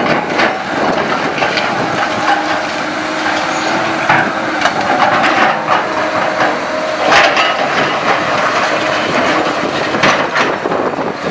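Hyundai crawler excavator demolishing a concrete building: a continuous crunching clatter of breaking concrete and falling rubble, with several louder cracks a few seconds apart, over the machine's running engine.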